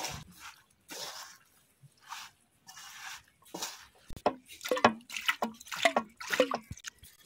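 Water splashing and dripping in irregular bursts, growing busier and sharper from about four seconds in.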